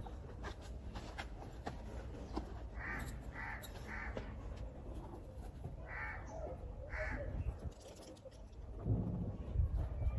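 A crow cawing five times, three calls in quick succession and then two more, over faint rustling. Low thumps near the end, as dung cakes are handled.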